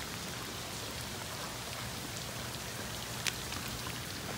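Steady rain falling on a swimming pool's water surface, with scattered sharper drop hits close to the microphone, one louder about three seconds in.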